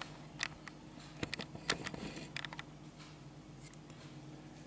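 Faint, scattered clicks and taps of hands handling a plastic screwdriver-style voltage tester and its multimeter probe lead, over a steady low hum. The clicks stop after about two and a half seconds.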